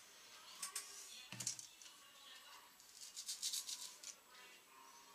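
Scissors snipping and fly-tying material rustling in short bursts, with a quick run of strokes about three seconds in, over faint background music.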